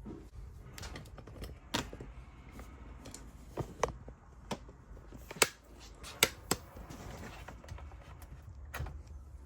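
Irregular light clicks and taps, about a dozen, the sharpest a little past the middle, over a low steady hum.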